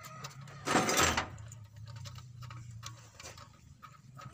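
Wrench and hand work on the injection pipe fittings of a truck diesel engine: small metallic clicks and taps, with one short loud rushing burst about a second in.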